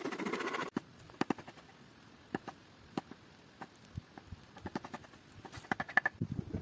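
A hand gouge rapidly scraping wood out of the hollow of a wooden plate, cut off abruptly under a second in. Then a campfire burning with scattered sharp crackles and pops, a quick cluster of louder snaps near the end.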